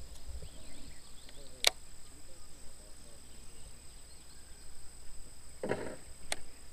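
Steady high-pitched insect buzzing in the grass, with a single sharp click about a second and a half in, and a short rustle followed by another click near the end.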